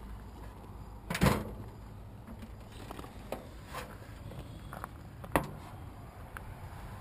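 Rear engine lid of a Zastava 750 LE being unlatched and swung open: a loud clunk about a second in, a few lighter clicks, then a sharp click a little past halfway.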